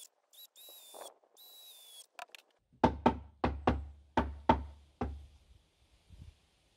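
Mallet knocking a 1-inch timber board into place in a wooden hutch frame: a quick run of about nine blows, one every quarter second or so, starting about three seconds in.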